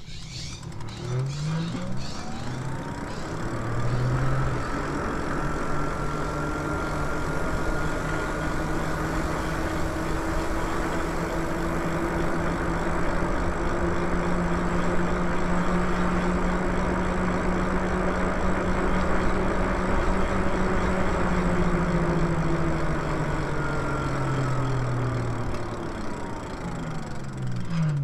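Lyric Cycles e-bike's electric motor whining, rising in pitch over the first several seconds as the bike speeds up, holding steady at cruising speed, then falling in pitch near the end as it slows. Under it runs a steady rush of wind and road noise.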